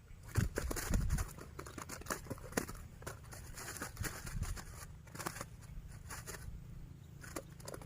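Irregular clicks and rustles of close-up handling, with a few louder knocks in the first second or so.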